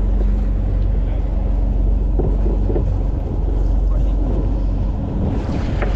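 A boat's engine running steadily, a low constant drone.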